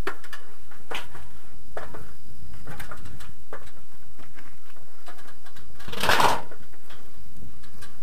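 Knocks and scrapes of someone climbing wooden scaffolding, with hands and feet thumping on the boards about once a second. A louder brushing scrape comes about six seconds in.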